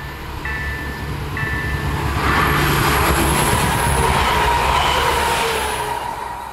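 A level-crossing warning signal beeping in short pulses about once a second, then covered as a regional train passes close by, loud and rumbling, its wheels on the rails giving a steady ringing tone. The train noise cuts off sharply near the end.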